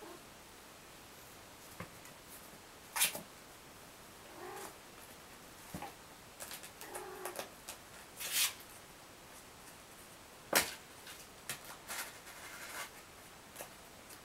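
Young kittens in a cardboard nursery box: a couple of soft, short mews amid scattered scratches and rustles of small paws and claws on cardboard and bedding.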